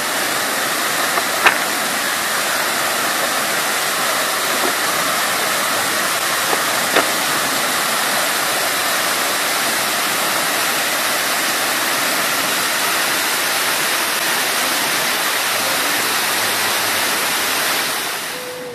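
Waterfall rushing steadily, an even wash of falling water, with a brief click about one and a half seconds in; it fades out near the end.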